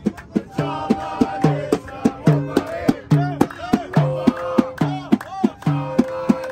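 A large frame drum struck by hand at a quick, steady beat, with a group of voices singing and chanting along and hands clapping.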